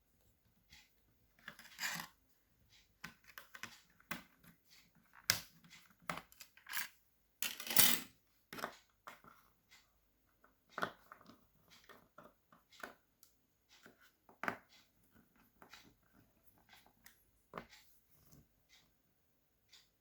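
Irregular small clicks and taps of a screwdriver working on a Dell Vostro 3360 laptop's bottom case as its screws are removed. The loudest clatter comes about 8 seconds in.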